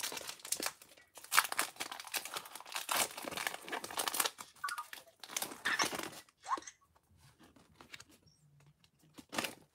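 Foil wrapper of a Pokémon trading card booster pack being torn open and peeled back by hand, a dense crinkling and tearing. It dies down to a few faint rustles about six seconds in.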